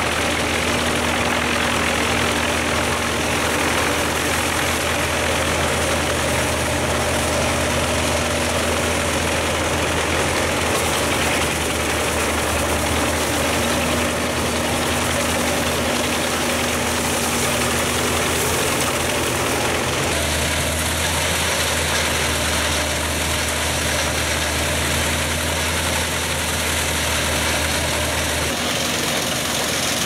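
Drum wood chipper with a 350 hp IVECO C87 diesel engine running steadily under load while chipping brush and branches. The steady low engine hum shifts about two-thirds of the way through and again near the end.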